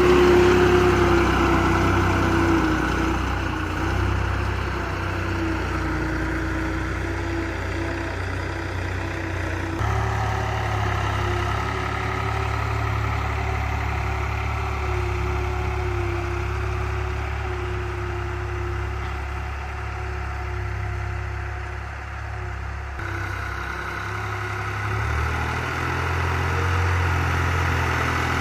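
New Holland 3600-2 tractor's three-cylinder diesel engine running steadily while it pulls a cultivator through ploughed soil. The engine note shifts suddenly twice, about ten seconds in and again a few seconds before the end.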